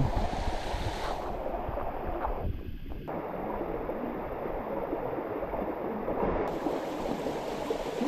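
Shallow stream of water running and gurgling over limestone rocks in a steady rush.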